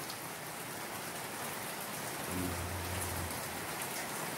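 Steady downpour of rain, an even hiss. A faint low hum comes in briefly about halfway through.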